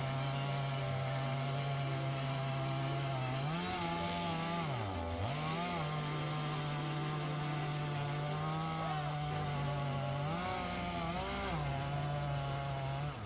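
Two-stroke chainsaw running at high revs, its pitch mostly steady but rising briefly a few times and dropping sharply about five seconds in before coming back up.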